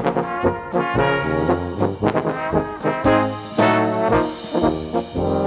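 Background instrumental music, brass-led, with changing melodic notes over a beat of sharp hits about twice a second.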